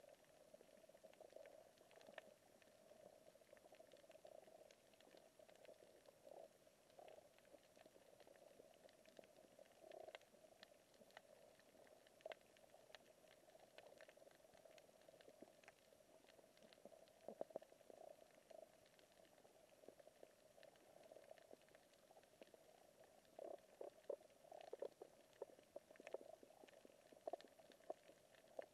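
Faint underwater ambience picked up by a submerged camera: a steady muffled hum with scattered faint crackling clicks, in denser clusters near the middle and towards the end.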